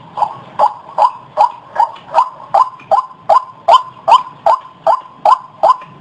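White-breasted waterhen (Amaurornis phoenicurus) calling its 'ruak ruak' call over and over: loud, short, harsh notes in an even rhythm of about two and a half to three a second.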